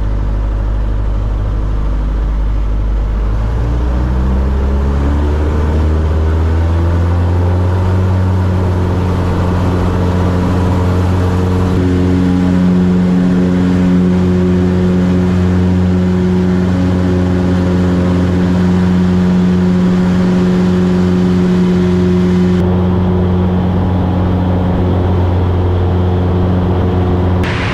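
Single-engine light aircraft's piston engine and propeller heard from the cockpit, the note rising over the first several seconds as power comes up for the takeoff roll, then holding steady at full power through the climb-out.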